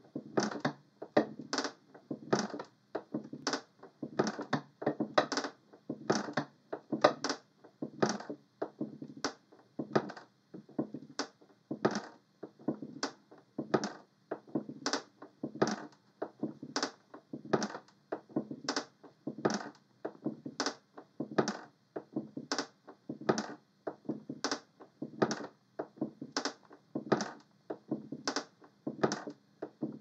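Wooden rocking chair rocking on a wood floor, creaking and knocking in a steady rhythm of a little more than one stroke a second.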